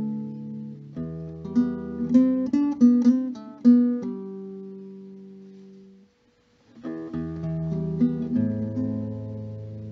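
Background music of plucked acoustic guitar. The notes die away to a brief silence about six seconds in, then the playing starts again.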